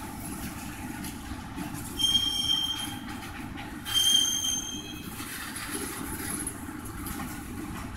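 Freight train of gondola cars rolling slowly past, a steady low rumble with two short, high metallic squeals from the wheels, about two seconds in and again about four seconds in.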